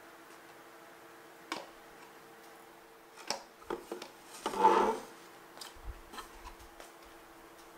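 Light knocks and clicks of particleboard shelf panels being handled and fitted together, with a louder brief scrape a little past halfway, over a faint steady hum.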